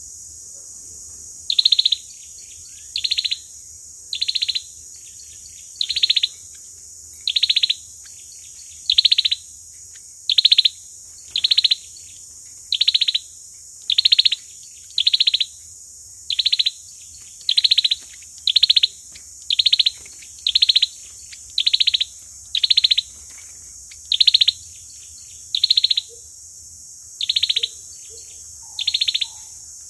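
Common iora calling: a long series of short, buzzy trilled notes, about one every second and a half, over a steady high hiss.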